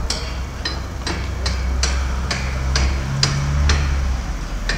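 Sharp, regular taps, a little over two a second, over a steady low rumble.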